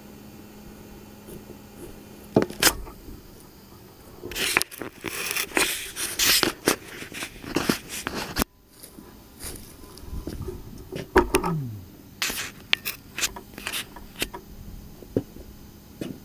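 Traxxas Slash RC car heard up close: a run of sharp knocks, scrapes and rattles, loudest in the middle, with a short motor whine that falls in pitch about eleven seconds in.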